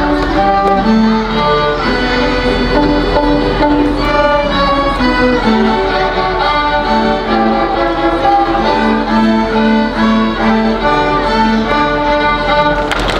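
A children's string ensemble of violins and cellos playing a melody in a steady run of sustained bowed notes.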